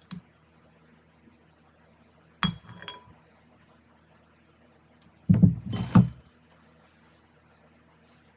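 Metal transfer case parts clinking and knocking together as they are handled: a short knock, then a clink that rings briefly about two and a half seconds in, then a louder cluster of knocks about five to six seconds in.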